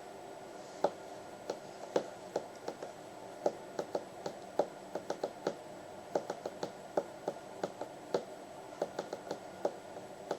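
Playing cards being handled: a run of light, irregular clicks and taps, a few each second.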